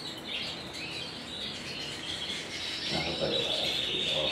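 Canary singing, a Spanish Timbrado: a continuous run of high, fast trills and rolls.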